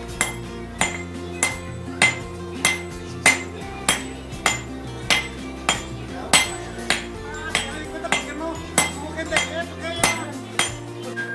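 A hammer striking copper at a steady hand pace, about one and a half ringing metallic blows a second, over background music.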